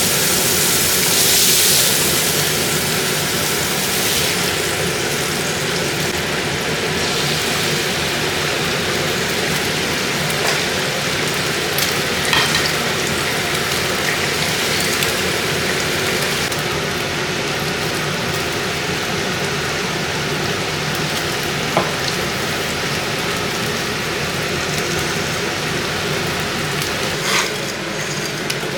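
Food sizzling in a frying pan: a steady hiss with a few light clicks from a utensil against the pan.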